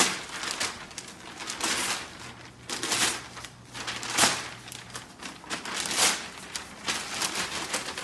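Newspaper rustling and crinkling in irregular bursts as a golden retriever bites it and pulls it about with its mouth.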